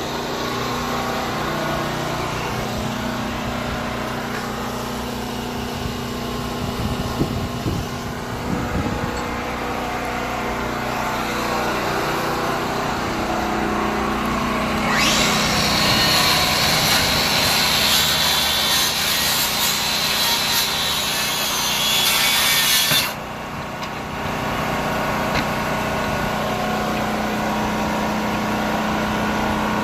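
Power saw running and cutting wood. About halfway through, a harsher, brighter cut lasts about eight seconds and stops suddenly.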